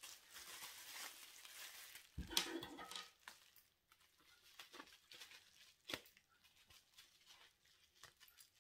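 Bubble wrap rustling and crinkling as it is handled and cut open with scissors, with a louder crinkle about two seconds in, then a few faint scissor snips.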